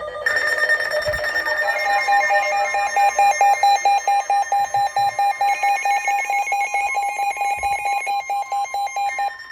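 Weather radios going off together for a warning: a steady high alarm tone, joined about two seconds in by fast electronic beeping, about four beeps a second, over a steady lower tone, which is the 1050 Hz NOAA Weather Radio warning alarm tone. The beeping and the lower tone cut off near the end.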